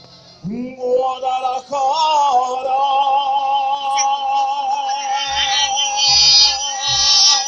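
Music: after a brief lull, a long held melody line with vibrato sets in, sung or played. Low bass notes join about five seconds in.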